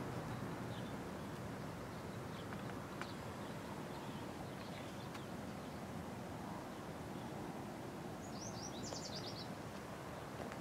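Steady outdoor background noise with a few small bird chirps, and a quick run of high chirps about eight seconds in.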